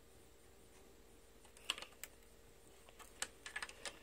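Faint clicks and taps of small toy pieces being handled and fitted together: a few clicks about halfway in, then a quicker run of clicks near the end.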